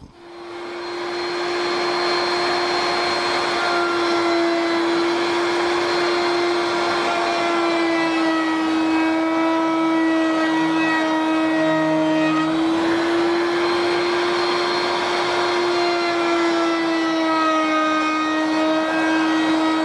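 A table-mounted router spins up over the first couple of seconds and then runs with a steady high whine. Its 3/8-inch radius round-over bit with a bearing is cutting the edges of a wooden rail fed past it, and the pitch sags slightly now and then under the cut.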